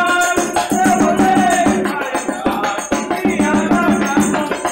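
Folk band music: a two-headed bass drum (zabumba), a pandeiro and a metal shaker keep a rhythm under sung melody between lines of the lyric.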